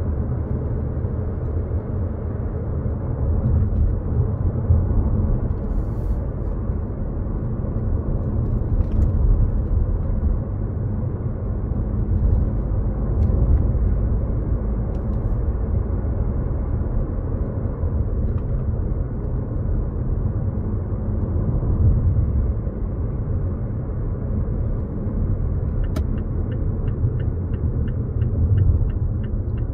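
Steady low rumble of a car's engine and tyres heard from inside the cabin while driving. Near the end a quick regular ticking starts, about three ticks a second.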